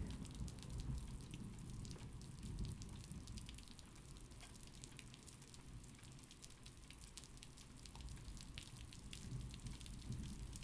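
Thunderstorm ambience: steady rain with individual drops ticking, over a low rumble of distant thunder that swells in the first few seconds and again near the end.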